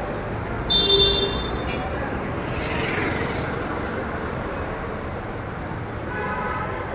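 Road traffic noise with a motor scooter passing close by, cut through about a second in by a brief, high-pitched vehicle horn toot, the loudest sound here.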